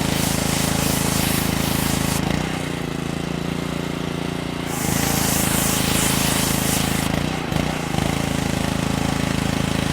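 Construction machinery running with a rapid, steady pulsing. It eases off and shifts pitch for a couple of seconds about two seconds in, then comes back up. A loud hiss joins it for about two seconds near the middle.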